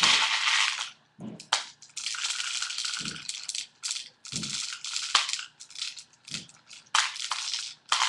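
Rattling and rustling from airsoft gear being handled, in a string of short noisy bursts with a few dull knocks between them.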